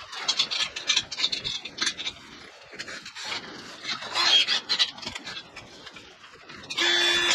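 Irregular clicks, taps and scraping of steel parts being handled and fitted on a metal sawmill frame. Near the end a louder steady whir with a held tone starts up.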